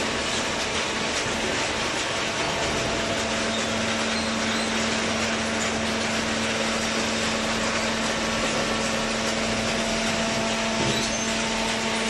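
Hydraulic baler's electric motor and pump running steadily, a constant machine drone. A low, even hum joins in a couple of seconds in and holds almost to the end.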